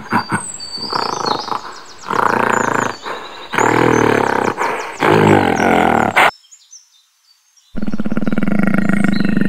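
Gorilla sound effect: loud roars and grunts, with birds chirping high above them, cut off about six seconds in. After a short silence, a second steady animal growl starts.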